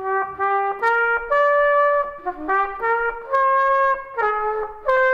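Solo trumpet playing a slow melody of about nine separate held notes that step up and down in pitch.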